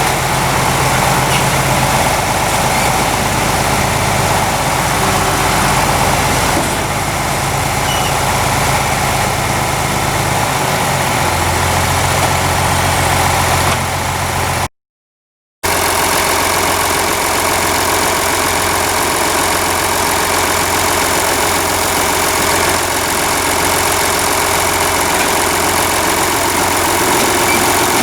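Engine running steadily, its low note shifting about eleven seconds in. The sound drops out completely for about a second near the middle.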